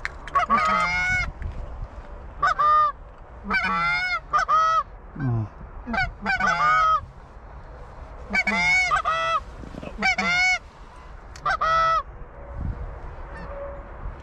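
Canada geese honking: loud two-note honks in repeated bursts every second or so, each sliding from a low note up into a higher one.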